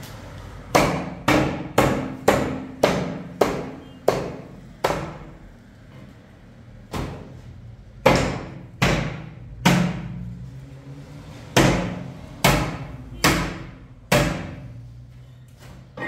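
A series of about sixteen hard, hammer-like blows in quick runs of roughly two a second, with short pauses between the runs; each blow rings briefly.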